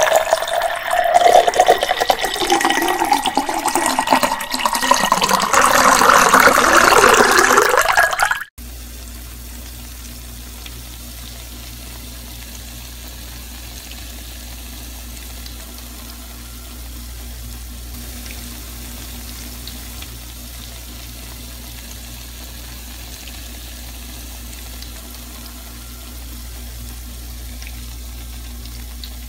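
Iced tea poured into a drinking glass for about eight seconds, the splashing rising in pitch as the glass fills. It cuts off suddenly, leaving a quieter steady low hum.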